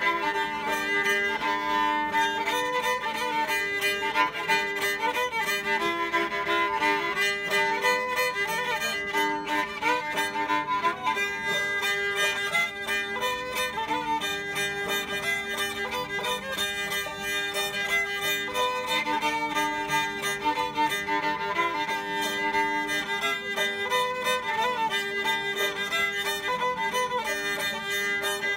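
Old-time fiddle and banjo duet: the fiddle bows the melody, loudest, over the banjo's steady plucked accompaniment.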